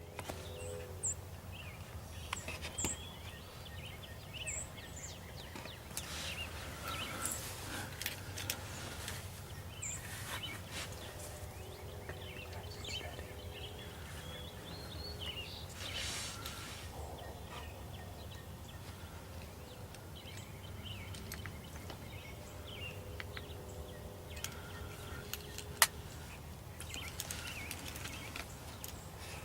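Songbirds chirping and calling over a steady outdoor background hum, with scattered rustles and one sharp click near the end.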